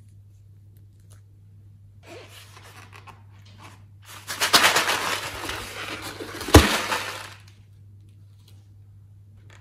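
Rustling and rubbing handling noise from a plastic piping bag and a long latex balloon, loudest for about three seconds past the middle, with one sharp tap about six and a half seconds in. A low steady hum runs underneath.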